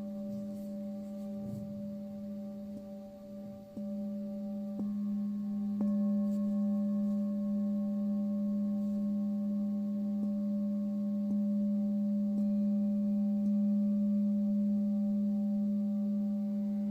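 Tibetan singing bowl ringing in a long sustained low tone with steady overtones above it, swelling louder about four seconds in, with faint light ticks about once a second.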